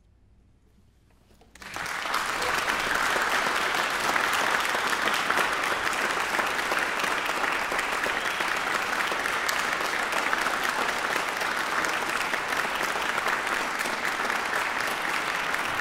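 Near silence, then audience applause breaks out suddenly about a second and a half in and carries on as steady clapping from a hall full of people.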